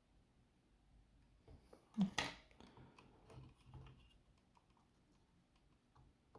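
Small objects being handled on a work surface during a soldering repair: one sharp clack about two seconds in, then a few lighter clicks and taps for a couple of seconds.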